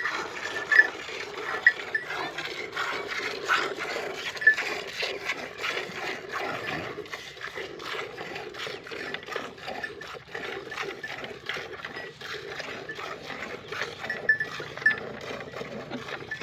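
Milk squirting into a metal bucket as a buffalo is hand-milked, the alternating streams making a quick, even rhythm of spurts.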